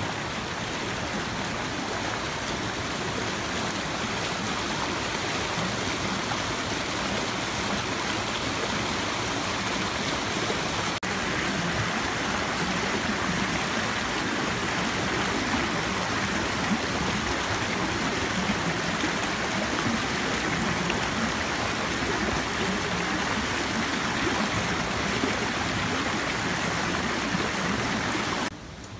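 Shallow forest stream flowing steadily, an even rushing of water that cuts off abruptly near the end.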